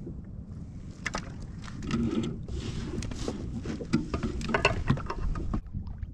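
Wind rumble on the microphone, with a run of sharp clicks, knocks and rattles from about a second in as a small fish is lifted out of the water and handled against the rod and kayak.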